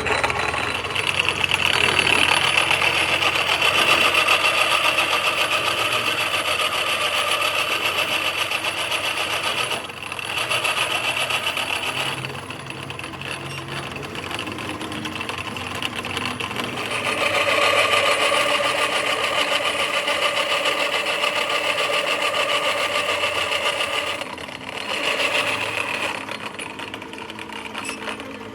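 A workshop machine runs steadily with a whirring, pitched sound, easing off and picking up again in long spells.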